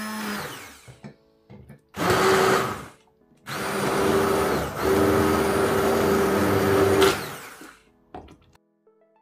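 Electric blender puréeing boiled pumpkin in separate runs: one winding down at the start, a short burst of about a second, then a longer run of about three and a half seconds that stops abruptly. Soft background music comes in near the end.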